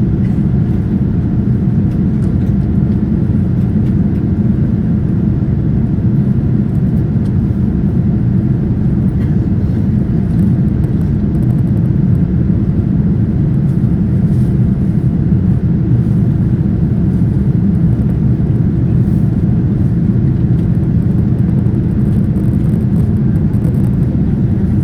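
Steady low cabin rumble of a Boeing 787-9 airliner, its engines and airflow blending into an even drone with no change in pitch or level.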